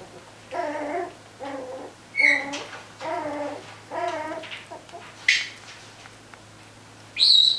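Wire fox terrier puppies vocalising in play: a string of short whiny yips and squeaks, about seven in all, with sharp high-pitched squeals a little past two seconds in, after about five seconds, and loudest near the end.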